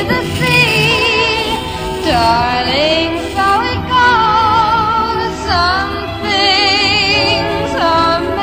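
Music with a singing voice holding long notes with wide vibrato and sliding up and down into them, over a steady accompaniment.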